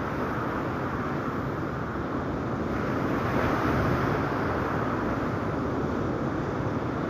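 Wind rushing over the microphone together with steady ocean surf, swelling a little about halfway through.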